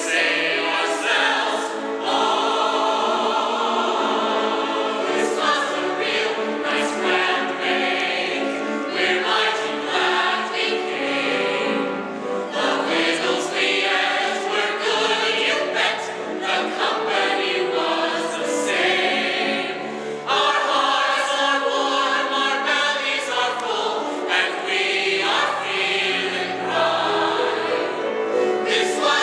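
Mixed chorus of men and women singing a show tune together on stage.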